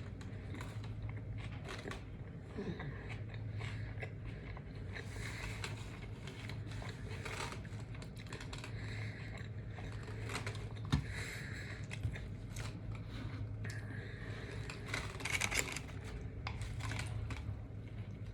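A person chewing and biting into a sub sandwich: irregular wet mouth sounds through the whole stretch, over a steady low hum.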